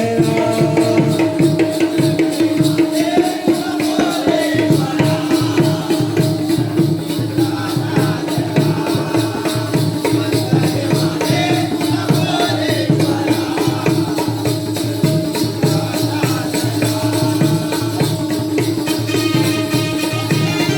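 Instrumental music of a Jakhadi folk ensemble: a steady held drone with a melody wavering over it, a hand drum beating a regular rhythm, and small cymbals or jingles ticking in time.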